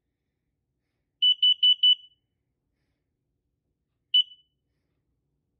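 Kidde smoke alarm beeping while being tested: four quick, loud, high-pitched beeps about a second in, then a single beep near the end.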